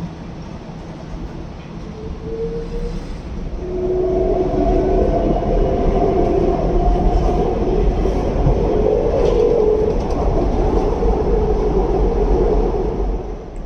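Electric rail train running, its motors whining in several steady tones over a rumble. It grows louder about four seconds in and fades near the end.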